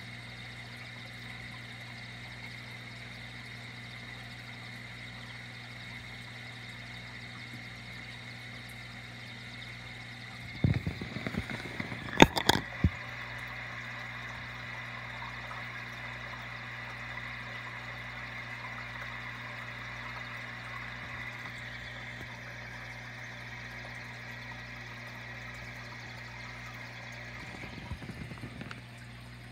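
Steady electric hum of an aquarium air pump, with a few sharp knocks and bumps about eleven to thirteen seconds in and lighter bumps near the end.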